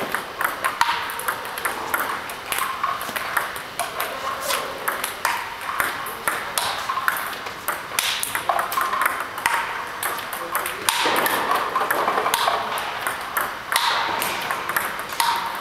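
Table tennis rally against a ball robot: a quick, steady series of sharp plastic ball clicks as balls are fed, bounce on the table and are driven back with topspin off a bat with XIOM Janus DF 1.5 rubber on a Hallmark Aurora blade.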